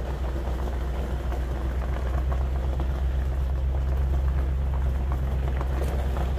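Pickup truck driving along a gravel drive, heard from its open bed: a steady low engine and road rumble, with tyres crackling over the gravel throughout.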